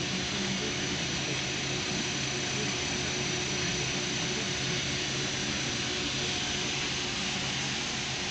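Industrial furnace equipment running steadily: a constant rushing noise with a low hum and a faint high-pitched whine.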